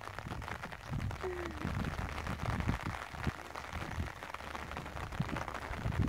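Rain pattering close to the microphone as many irregular light taps, with faint voices in the background.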